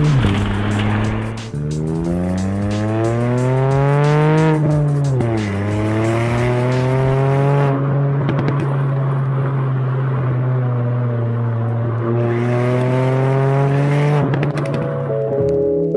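Ford Fiesta ST Mk8's 1.5 EcoBoost three-cylinder engine breathing through an aftermarket GPF-back exhaust under acceleration. The revs climb for a few seconds, drop at a gear change about five seconds in, then rise slowly and steadily in the next gear.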